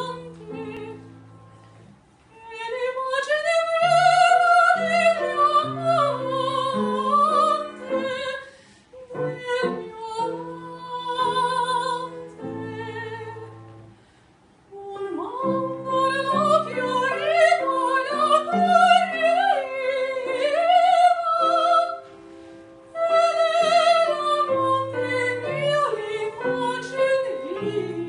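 Soprano singing an Italian art song with wide vibrato over grand piano accompaniment. The voice stops briefly between phrases while the piano carries on.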